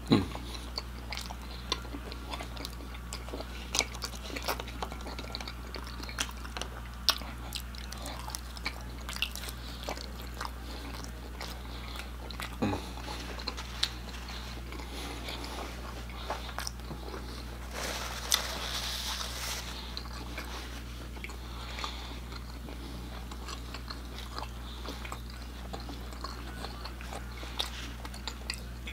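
Close-miked chewing of pepperoni pan pizza: a stream of small wet mouth clicks and smacks, with a short breathy hiss a little past halfway. A faint steady low hum runs underneath.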